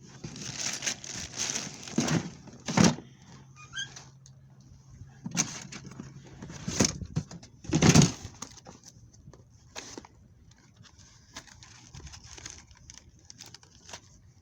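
Rummaging through a bag of belongings by hand: rustling of the bag and contents, with several sharp knocks of items being handled, the loudest about eight seconds in, then quieter handling.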